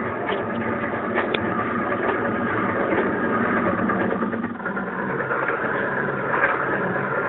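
Student-built 3-axis CNC machine running, a steady mechanical motor noise with a low hum and a few light clicks, dipping briefly about halfway through.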